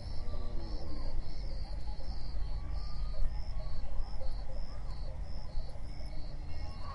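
Insects chirping in an even, pulsing rhythm, about two pulses a second, over a steady low rumble. A brief low animal call comes near the start.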